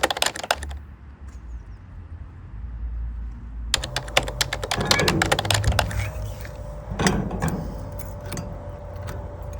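Rapid clicking like keyboard typing, stopping under a second in. After a low hum, scattered clicks and knocks return partway through, along with a steady tone that drops slightly near the end.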